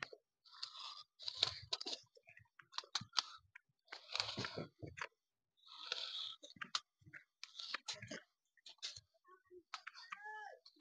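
Dry weeds and grass rustling and crackling in irregular short bursts, with scattered clicks, as a measuring tape is pulled through the plants and they are pushed aside by hand and underfoot.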